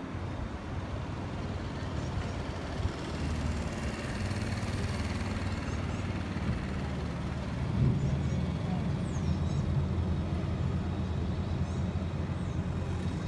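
Boat engine running steadily under way, a low drone that grows a little louder about eight seconds in.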